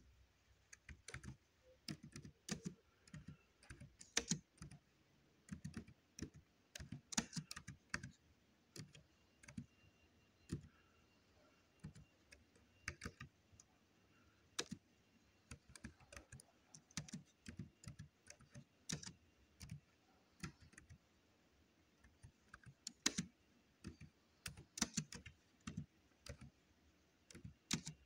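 Laptop keyboard typing: irregular keystrokes in short bursts, with pauses of a second or more between words, as a sentence is typed slowly.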